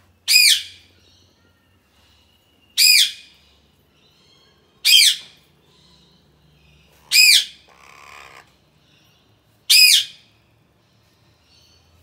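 Indian ringneck parakeet giving loud, shrill, short squawks, five times at an even pace of about one every two and a half seconds, each call rising and falling in pitch. A quieter rasping sound comes between the fourth and fifth call.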